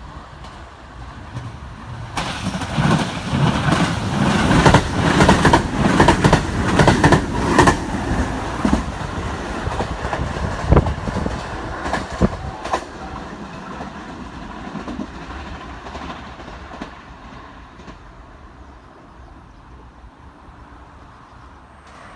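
Hanwa Line electric train passing close by, its wheels clattering rapidly over the rail joints. It builds quickly, gives two sharp knocks a few seconds later, then fades away.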